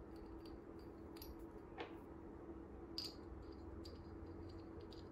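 Faint clicks and small scrapes of steel screws and a hex key as the screws are threaded by hand into an aluminium beater bar, over a steady hum; the clearest clicks come about two and three seconds in.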